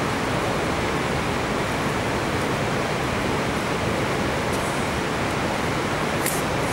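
Steady, even hiss of background noise with no distinct event.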